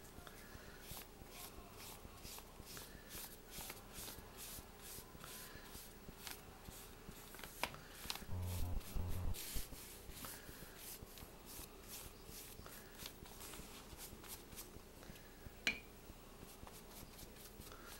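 Paintbrush scrubbing watercolor onto thick journal paper: a long run of short, scratchy brush strokes, a few a second, with one louder, low bump lasting about a second near the middle.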